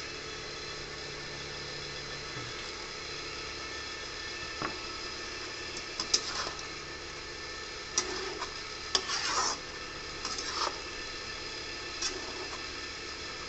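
A metal spatula clinking and scraping against a steel wok of pork pieces a few times in the second half, over a steady background hum.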